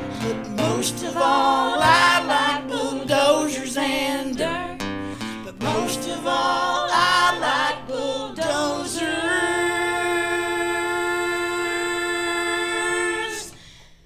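The end of a live song: several voices singing together over guitar, then settling about eight seconds in onto one long held final chord that cuts off sharply near the end.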